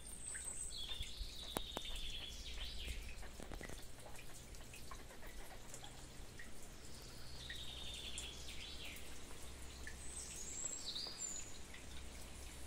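A songbird singing: two phrases about seven seconds apart, each a high note followed by a fast, falling trill, with a few more high notes near the end. A low, steady rumble lies underneath.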